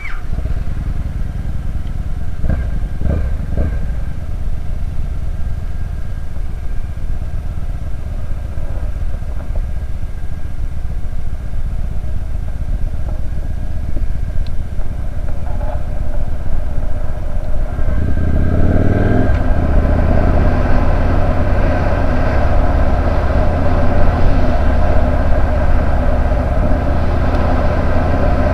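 2011 Victory Kingpin's 106-cubic-inch V-twin engine running on a ride. There are a few short knocks a few seconds in. About two-thirds of the way through it gets louder and fuller as the bike pulls harder.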